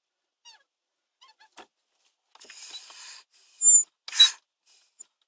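UAZ Patriot brake pedal being pressed: a short hiss of air from the brake vacuum booster, which is normal, then two sharp, high squeaks from the pedal about four seconds in.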